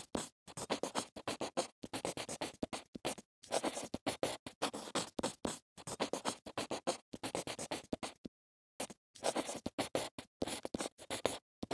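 Typing sound effect: rapid, irregular key clicks, broken by short pauses and one longer pause a little after two-thirds of the way through.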